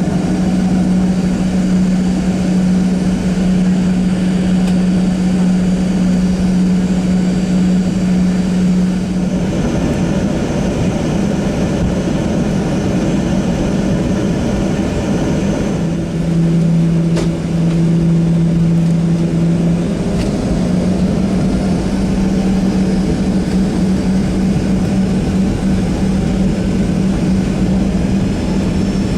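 Cabin noise of a Boeing 737-700 from a seat beside the engine: the CFM56-7B turbofan running steadily, with a loud steady hum that drops out about a third of the way in, comes back lower in pitch for a few seconds past the middle, then returns to its first pitch.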